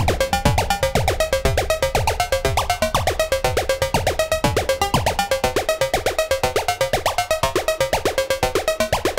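Moog DFAM and Mother-32 semi-modular synthesizers playing a sequenced electronic patch. A fast, even pulse of clicks runs under a short repeating figure of high notes, with percussive drum hits that drop sharply in pitch. The hits grow fainter in the second half.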